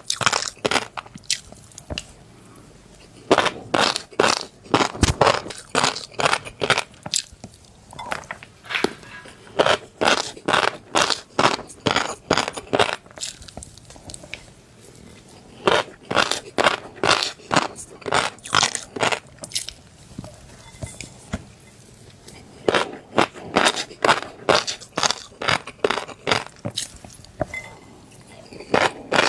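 Crunchy fish roe being chewed close to the microphone: rapid crisp crunches and pops in bursts of a few seconds, with short pauses between mouthfuls.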